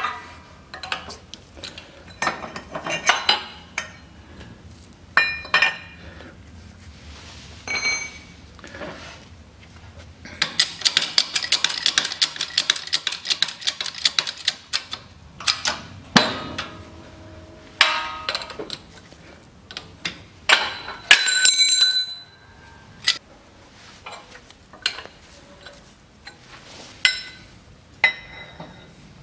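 Steel press tooling (a mandrel and a plate adapter) clinking and knocking against a wheel hub and brake disc as it is set up in a shop press to press in a wheel-bearing race. Midway there is a rapid rattle of clicks lasting several seconds, and a little later a clear metallic ring.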